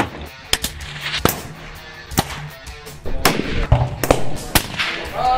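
Background music under a string of sharp rifle shots at irregular intervals, each with a short echoing tail.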